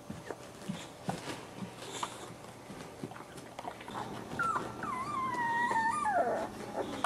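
Boxer puppy whining: one wavering high call of about two seconds, starting about four and a half seconds in and dropping in pitch at the end. A few faint clicks and scuffs come before it.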